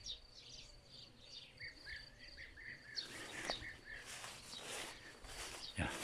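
Faint outdoor birdsong under trees: a steady high chirping trill, joined from about a second and a half in by a run of short repeated lower notes. About halfway a louder rustling hiss with small crackles comes in over it.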